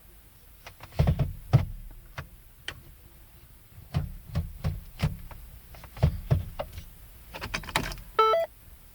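Sharp mechanical clicks and knocks in quick groups from the controls of a 2013 Ford Focus that will not start, ending with a short electronic chime near the end.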